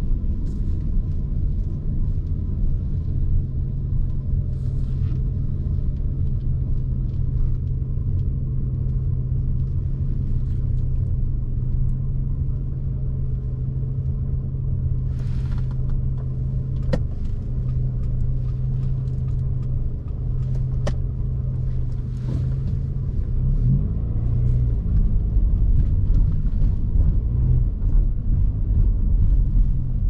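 Car driving on a city street, heard from inside the cabin: a steady low engine hum and road rumble. Two sharp clicks come a few seconds apart past the middle, and the rumble grows louder over the last several seconds.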